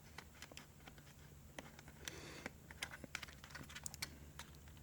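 Faint scattered small clicks and light rustles from fingers handling a small plastic quadcopter's battery compartment and its wire connector.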